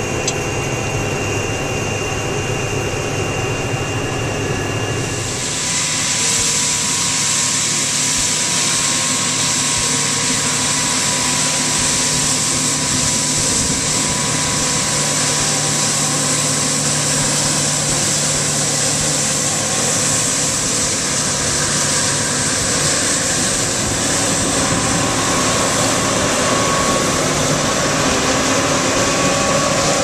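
John Deere combine with a stripper header running as it harvests wheat: a steady machine hum, joined about five seconds in by a loud, steady rushing hiss as the combine draws near and passes.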